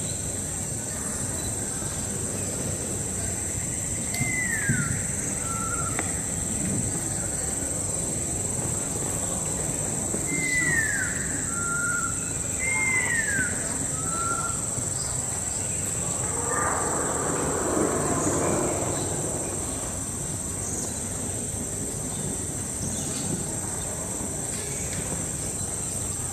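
Tropical rainforest ambience: a steady, high-pitched insect drone with a bird calling three times, each call a whistle falling in pitch followed by a short lower note. A louder rushing sound swells for a couple of seconds past the middle.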